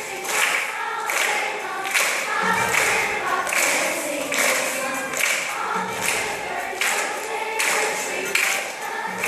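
Children's choir singing together, with a steady percussive beat a little faster than once a second.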